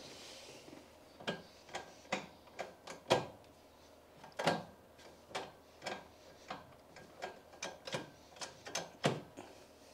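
Manual gear lever being worked through the gears: a string of irregular clicks and clunks as the lever is moved, with its shaft now and then touching the edge of the hole in the carbon-fibre tunnel top.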